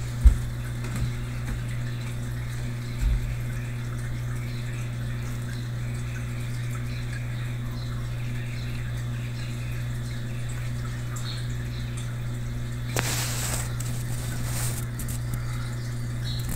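Steady low hum with water trickling and dripping, typical of an aquarium's filter and pump running. A few light knocks early on and a brief louder rush of noise about three quarters of the way through.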